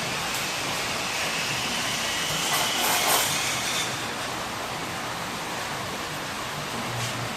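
Steady rain, with a louder rushing swell about three seconds in.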